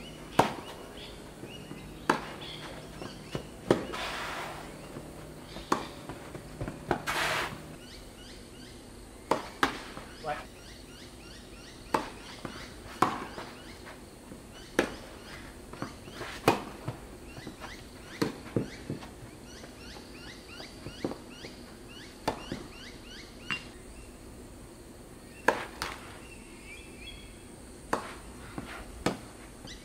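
Tennis rallies: racket strings striking the ball and the ball bouncing on the court, sharp pops every one to two seconds, with short gaps between points.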